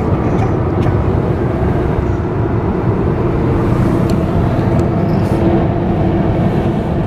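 Steady road and engine noise of a moving car, heard from inside the cabin: a constant low rumble with a faint engine hum.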